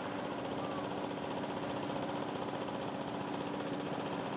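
Small single-cylinder stationary diesel engine running steadily with a rapid, even beat, driving a meat grinder as it minces meat.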